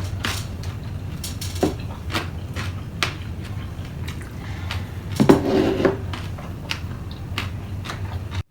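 Eating sounds: utensils clicking and tapping against a bowl and plate, a louder clatter about five seconds in, over a steady low hum. The sound cuts off suddenly near the end.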